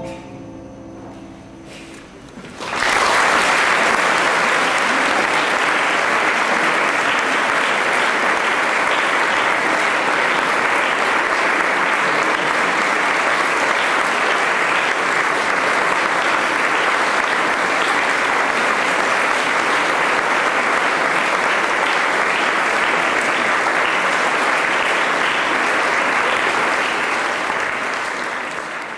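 The last violin and piano notes of the piece die away, and about three seconds in an audience starts applauding, steady and loud, tapering off near the end.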